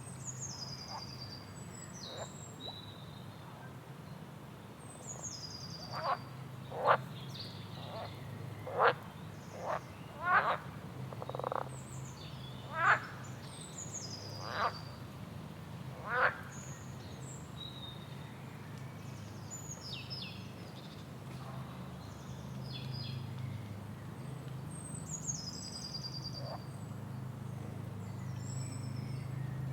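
Tropical rainforest wildlife chorus: a low steady drone runs under repeated high, falling whistled bird calls. About six seconds in comes a run of about ten loud, short calls that stops around sixteen seconds.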